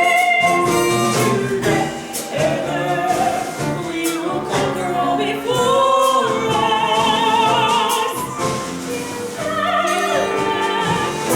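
Stage-musical singing with instrumental accompaniment: voices holding long, wavering sung notes over a sustained backing.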